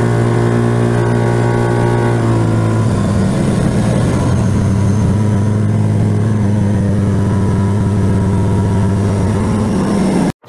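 Vehicle engine running at a steady speed while driving, a steady low drone mixed with road noise; its higher overtones fade about three seconds in. Cuts off abruptly near the end.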